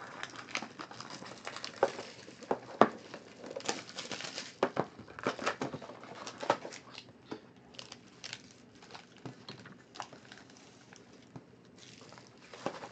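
Foil trading card packs crinkling and crackling as they are handled, in irregular rustles and sharp crackles.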